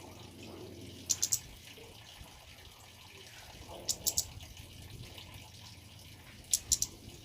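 Male kemade bird giving short groups of two or three sharp, very high chip notes, about every two and a half seconds, over a steady trickle of water.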